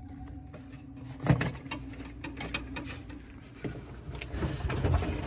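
Scattered knocks and clicks of refrigerator interior parts being handled and worked loose by hand, over a steady low hum.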